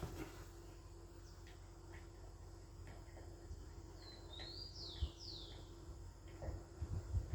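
A bird calling in the background: a short run of three or four quick falling chirps about four seconds in, over a steady faint hum, with soft low bumps near the end.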